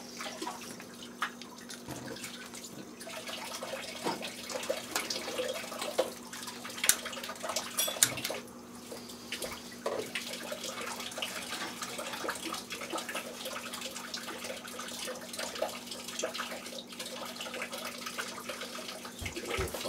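Gas stovetop burners being lit and burning with a steady hiss, with scattered clicks and knocks from the range knobs and pans.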